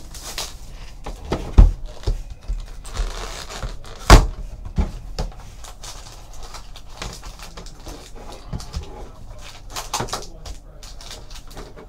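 Handling of a cardboard trading-card hobby box on a table: a few sharp knocks, the loudest about four seconds in, then lighter rustling and clicking as the foil card packs are taken out.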